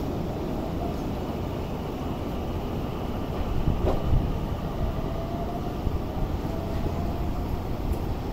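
Keio 1000 series electric train pulling out of the station: a low rumble of wheels on rails, with the traction motors' inverter whine rising in pitch a few seconds in. A single knock comes about four seconds in.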